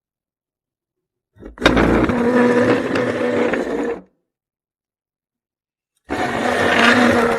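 A chair dragged across a floor in two bursts, the first about two and a half seconds long and opening with a sharp knock, the second about a second and a half; a steady pitched tone runs through each.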